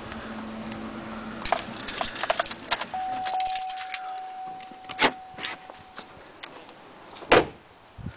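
Keys jangling and clicking at a pickup truck's dashboard, with a thin steady beep for a few seconds, then two sharp knocks, the second and louder one a door thudding shut near the end.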